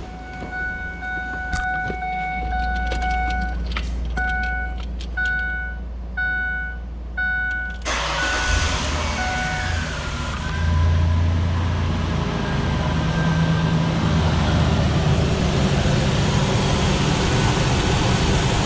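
A 2003 Ford Explorer's dash warning chime beeps repeatedly, with a few clicks. About 8 seconds in, the engine cranks and starts, then runs steadily. This is the test run with the newly fitted alternator and belt, and no bearing noise is reported.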